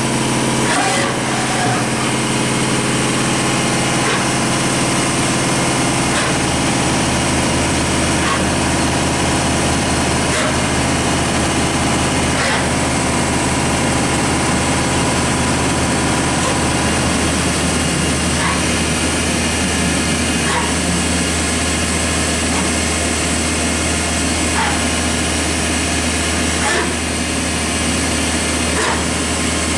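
Mazak VCN 410A-II vertical machining center running a program in auto cycle at full rapid: a steady machine hum and whine from the turning spindle and axis drives, with a short sharp sound every couple of seconds as the axes move. About 17 seconds in the low hum drops to a different pitch and stays there.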